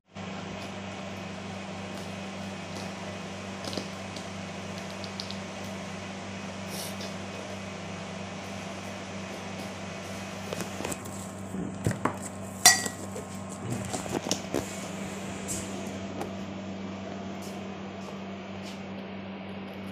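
A kitchen knife cutting into a large head of cabbage on a plastic cutting board, with scattered clicks and taps of the blade and handling, clustered in the middle and loudest about two-thirds of the way in. A steady low hum runs underneath.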